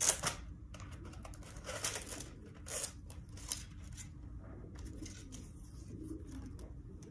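Hands handling a plastic fibre splice tray and cable element: a few short scratchy rustles and light clicks in the first few seconds, then quieter faint handling noise.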